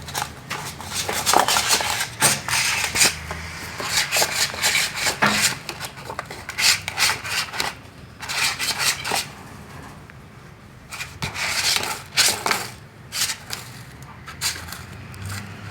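Siamese kitten scratching with its claws: irregular bouts of quick, raspy scratches with short pauses between them.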